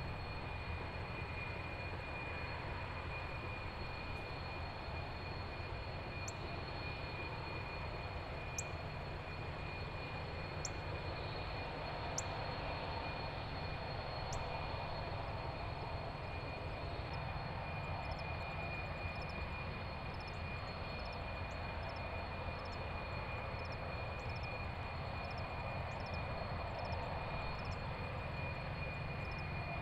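Designed industrial drone of the kind meant to make an idle factory sound as if it is running: a steady low mechanical rumble with two steady high whining tones. A few sharp high clicks come in the first half, and a regular light ticking, nearly two a second, starts a little past the middle.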